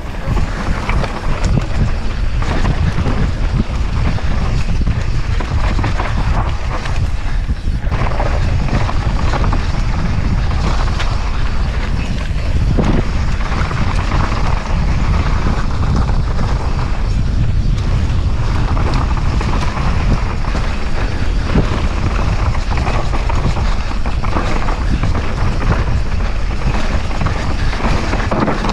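Downhill mountain bike descending a dry, dusty dirt trail at speed: wind rumbling on the body-mounted action camera's microphone over the knobby tyres crunching across loose dirt and rock, a loud, unbroken rumble.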